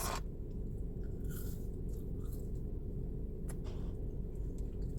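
Close-miked chewing of food: soft mouth sounds and a single sharp click about three and a half seconds in, over a steady low hum.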